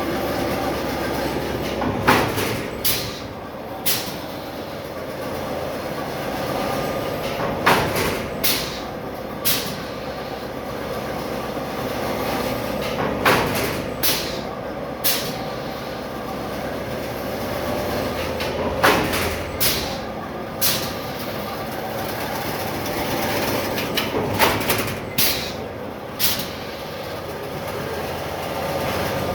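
Automatic wire mesh weaving machine running: a steady motor hum with a group of three sharp clacks about every five and a half seconds as it works through its cycle.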